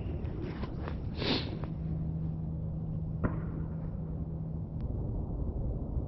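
Handling noise from clothing and the ice rod rubbing near the chest-mounted camera, with a brief hissing swish about a second in and a sharp click about three seconds in. A faint steady low hum runs underneath for a few seconds in the middle.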